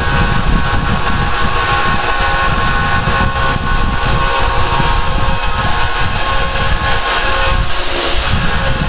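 Yato YT-82185 portable band saw running steadily, its blade cutting through a rusty steel angle: an even machine sound with several held tones over grinding noise.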